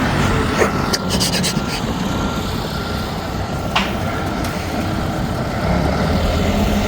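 A vehicle engine running steadily with a low rumble, with a few short sharp clicks about a second in and again near four seconds.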